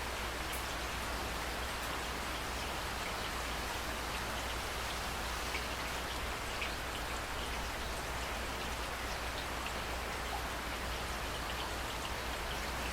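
Steady rain falling: an even hiss with a few separate drop ticks, over a low steady hum.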